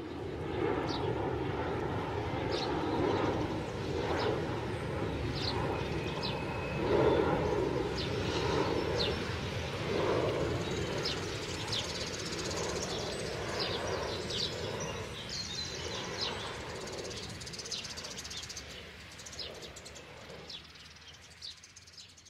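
Outdoor city ambience: a steady distant rumble of traffic and aircraft, with birds chirping here and there over it. It fades out gradually over the last several seconds.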